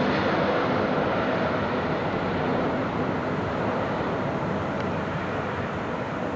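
Emirates Airbus A380's four jet engines running at approach power just after it passes low overhead with its landing gear down. The steady rushing noise fades slowly as the airliner flies away.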